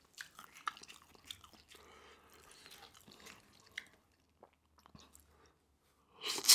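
Close-miked eating sounds: faint wet clicks of chewing and of fingers handling sauce-covered prawns, then, a little after six seconds, a loud wet, crackling bite into a jumbo prawn.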